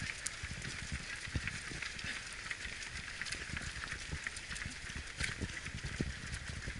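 Footfalls of a runner carrying the camera, jolting it at each stride: low thumps about three a second over a steady hiss.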